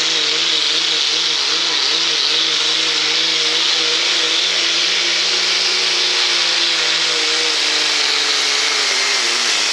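Diesel Dodge Ram pickup's Cummins inline-six working hard at high revs while pulling a weight-transfer sled, with a loud steady hiss over the engine note. The engine speed wavers, then drops near the end as the pull winds down.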